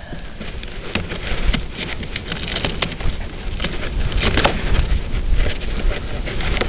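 Strong wind buffeting the microphone, a steady low rumble broken by many sharp crackles and knocks.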